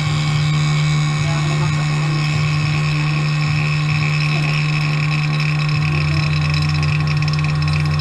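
Vacuum pump running with a steady hum while it draws the air out of mountain-bike fork foam rings soaked in fork oil, to saturate them fully. A lower hum joins about six seconds in.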